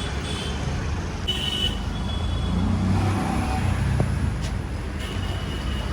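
Road traffic heard while travelling: a steady low rumble of vehicle engines and tyres, with brief high tones about a second and a half in and again near the end.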